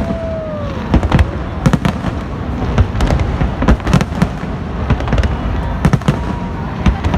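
Aerial fireworks bursting in a rapid, irregular series of sharp bangs and crackles over a steady rumble, with a few whistling tones gliding down in pitch.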